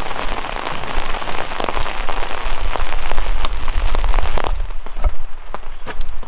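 Steady rain pattering, with many separate drop taps, over a low wind rumble on the microphone. About four and a half seconds in, the patter thins and turns duller.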